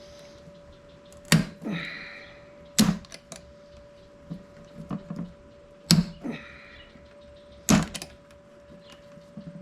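Four sharp hammer blows a second or two apart, with lighter knocks and clinks between, peening over the end of a scooter trunk's hinge pin so it can't slide back out.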